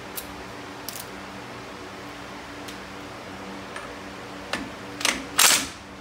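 Handling noise right at the camera: a few light clicks, then a louder scuffing burst near the end. Under it runs the low steady hum of a shop fan.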